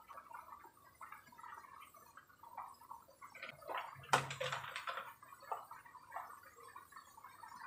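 Faint kitchen handling: a metal spoon scraping and clicking against a nonstick pan as raw chicken is mixed with spices. Scattered light clicks and rustles, with one sharper knock about four seconds in.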